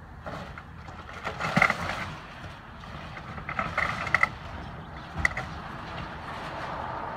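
Excavator tearing into a house's roof during demolition: sharp squealing creaks of the structure and machine about one and a half seconds in, again around four seconds and once more at about five seconds, over the steady low running of the excavator's engine.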